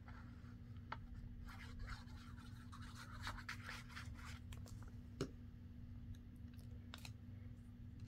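Nozzle of a liquid glue bottle scraping and rubbing over paper as glue is spread along the edge of a paper piece, with faint paper handling and a single light tap about five seconds in.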